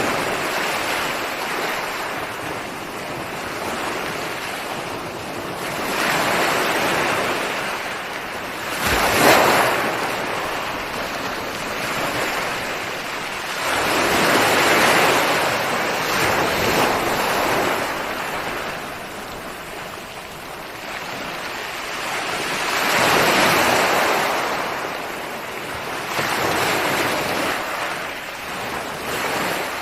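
Ocean surf: waves breaking and washing up the shore in slow swells every several seconds, with one sharper, louder crash about nine seconds in.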